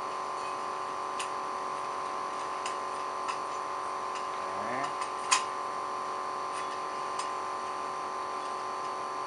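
Steady electrical hum of lab equipment, with several light, sharp metallic clicks as the lid of a perforated stainless-steel sampler cage is twisted open; the loudest click is about five seconds in.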